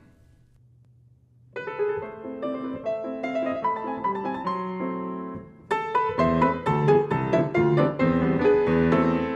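Grand piano playing a quick run of notes, starting about a second and a half in after a near-silent pause. It breaks off briefly and comes back fuller and louder, with deep bass notes under fast, busy playing higher up.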